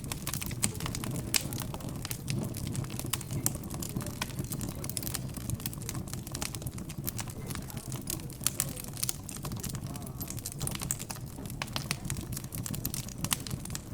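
Crackling fireplace fire, with frequent small sharp pops at irregular intervals, over a low murmur of indistinct background chatter.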